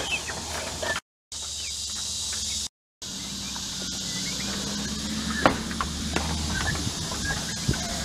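Poultry pen sound: scattered short peeps and clucks from silkie chickens and young turkeys over an open-air hush, with a few knocks and rustles from handling. The sound cuts out to silence twice, briefly, in the first three seconds.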